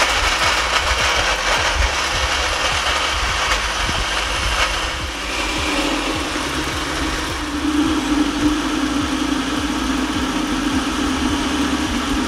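Countertop blender motor running at full speed, chopping fresh coconut, roasted chickpeas, green chilies and cilantro in water. About six seconds in the chopping noise eases and the motor settles into a steady hum as the mixture turns into a smooth, swirling purée.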